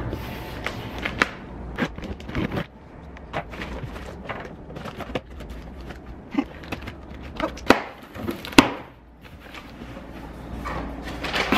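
A taped cardboard shipping box being handled and opened: irregular scraping, rustling and knocking of cardboard, with a couple of sharper knocks past the middle.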